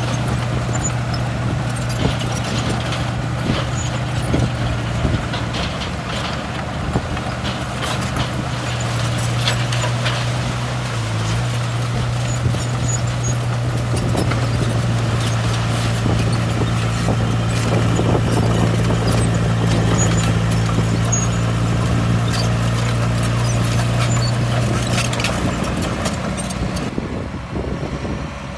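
Heavy diesel earthmoving machinery running steadily, with repeated short metallic clanks and knocks over the engine. The steady engine note drops away near the end.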